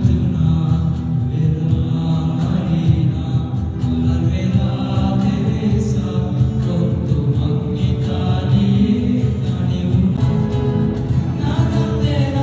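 A live band with keyboard and guitars and a group of singers performing a song together over the hall's loudspeakers.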